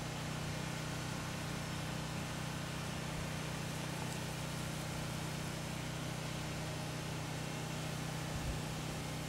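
A steady low machine or electrical hum under an even hiss, unchanging throughout.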